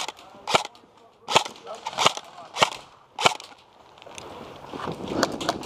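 Airsoft gunfire: six sharp single cracks, about half a second to three-quarters of a second apart. From about four seconds in they give way to a rising, rough scuffle of running footsteps and gear.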